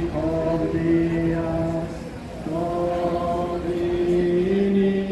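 A crowd of people singing a slow hymn or chant together in long, held notes that step from pitch to pitch, with a short break about two seconds in.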